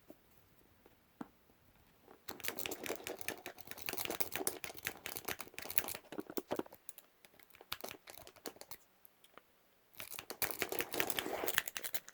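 Lock pick working the pins inside a padlock's keyway under a tension wrench: rapid clicking and scraping in two spells, one from about two seconds in lasting some four seconds, and another shorter one near the end, with a few scattered clicks between.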